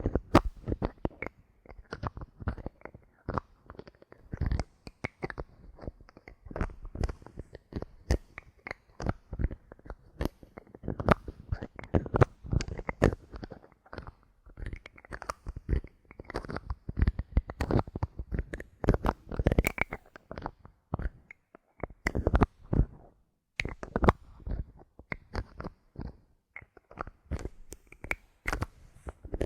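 Bottle caps handled close to the microphone: a dense, irregular stream of small clicks, taps and crackly scratches.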